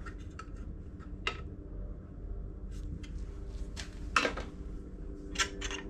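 Scattered sharp metallic clicks and taps of a steel square and hand tools against a belt grinder's steel work rest as it is squared up and tightened, the sharpest a little past four seconds in, over a steady low hum.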